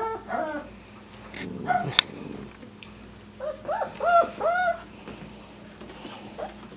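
Five-week-old poodle puppies giving short whiny yips, each rising then falling in pitch: a few right at the start, then a run of about four in the middle. A single sharp tap about two seconds in.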